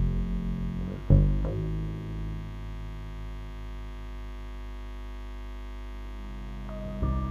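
Double bass plucked once about a second in, its deep note ringing and fading into a low, steady held drone. Just before the end, a new, higher held tone comes in.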